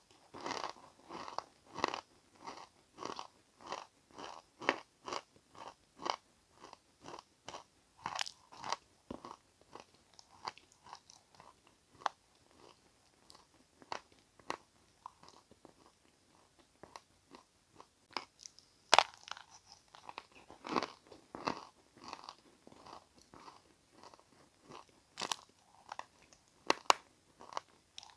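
A person biting and chewing crunchy chalk and clay crumbs: crisp crunches about two a second at first, then sparser, with one sharp snap about two-thirds of the way through.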